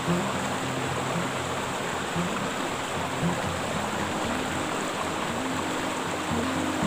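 River water flowing, a steady rushing with no breaks.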